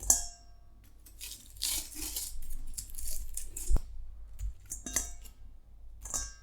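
Kitchenware clinking and clattering as chicken wings are moved into a bowl. A sharp ringing clink comes at the start, then a rattling clatter, a hard knock about halfway through, and a few more clinks.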